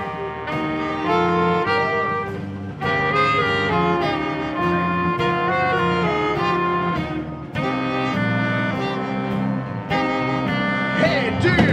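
Live rock band with a horn section of saxophones and trombone playing an instrumental intro: the horns hold chords that change about every second over bass, keys and drums. A voice comes in near the end.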